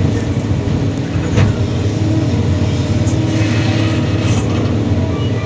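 Kobelco SK330-10 excavator's diesel engine running steadily at working load. A single knock comes about a second and a half in, and a brief hiss follows a few seconds in.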